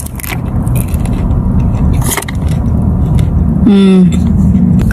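Steady low rumble with a few faint clicks, and a short hummed "mmm" of approval, falling in pitch, about four seconds in as the banana dessert is tasted.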